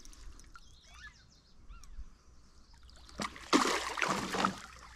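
Water splashing loudly for about a second, beginning about three and a half seconds in, as a hooked smallmouth bass thrashes at the surface beside the boat during the fight.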